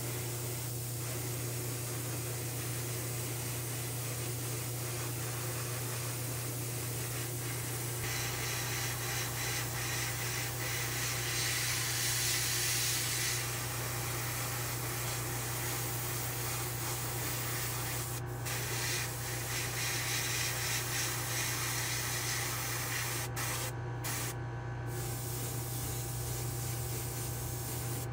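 Airbrush spraying candy paint onto a small diecast truck cab: a steady hiss that is strongest a few seconds before the middle and breaks off briefly a few times in the later part, over a steady low hum.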